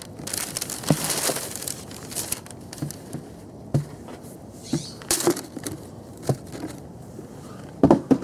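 Tissue paper rustling and crinkling, with a series of soft knocks as sneakers are picked up and set down on a table; the loudest knocks come near the end.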